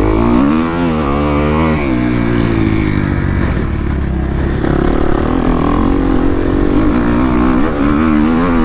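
Kawasaki KX250F dirt bike's four-stroke single-cylinder engine running under throttle, its pitch rising and falling repeatedly, with a steady low rumble of wind on the microphone.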